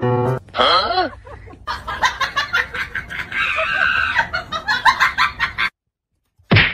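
Comedy soundtrack of music with chicken-like clucking and squawks in quick repeated notes. It cuts off abruptly about a second before the end, and a short loud sound follows just before the end.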